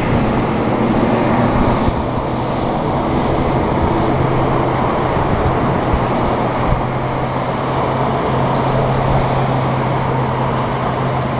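Steady rush of road traffic, with a low steady hum underneath.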